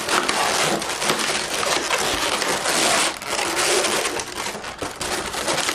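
Inflated latex modelling balloons rubbing and creaking under the hands as they are twisted and pressed together, a continuous scratchy run of squeaks and crackles.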